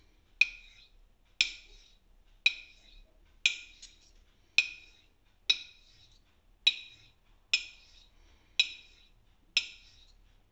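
Straight razor being honed on a Shapton Kuromaku 12k ceramic whetstone: a sharp click of steel on stone at each stroke, about once a second, ten in all, each with a brief metallic ring.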